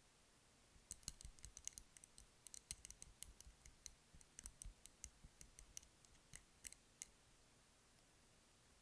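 Light, quick tapping: a rapid, irregular run of sharp little clicks starting about a second in and stopping about seven seconds in, with one faint tap near the end.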